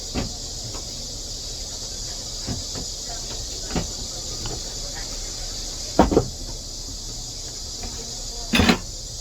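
A few irregular knocks and clatters from work on a sandal at a shoe-repair bench, the loudest about six seconds in and a longer double knock near the end, over a steady high hiss.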